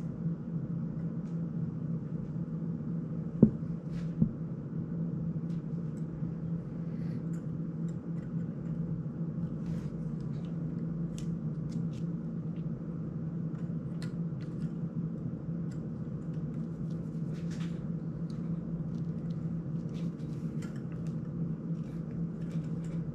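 Faint clicks and taps of a GEPRC CineLog 35 FPV drone's frame and small parts being handled during disassembly, with two sharp knocks about three and a half and four seconds in, over a steady low hum.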